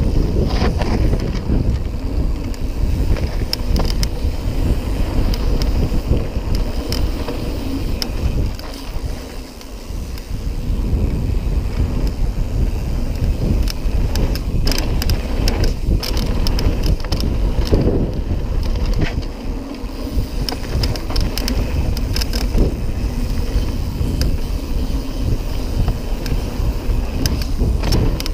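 Wind buffeting the microphone of a handlebar-mounted camera on a full-suspension mountain bike riding fast downhill, with the tyres rolling over dirt and loose stones and frequent clicks and rattles from the bike over bumps. It briefly eases off about nine seconds in.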